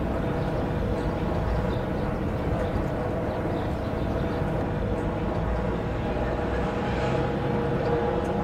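Steady mechanical drone of machinery or an engine, a low rumble with a constant hum of several steady tones, unchanging throughout.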